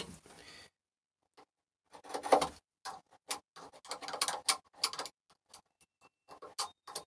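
Sharp, irregular clicks and small scrapes of a blade tool picking and paring at the corner of a freshly sawn birch joint, with a brief scuffle about two seconds in.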